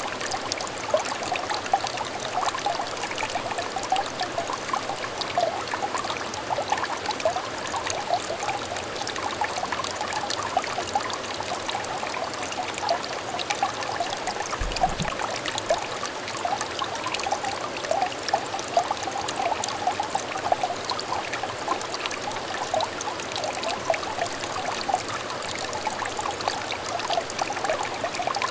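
Small clear stream trickling and babbling steadily, with dense little bubbling gurgles.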